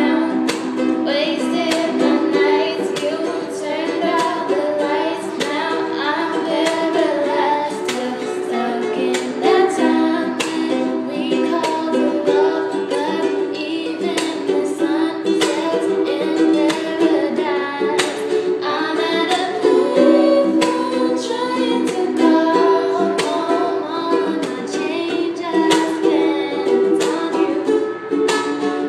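Girls' voices singing a pop song over steadily strummed acoustic strings, with the echo of a small bathroom.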